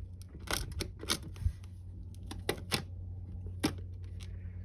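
Scattered sharp clicks and knocks of tools and metal parts being handled while a diesel heater is taken apart, about seven in all, one a duller thump, over a steady low hum.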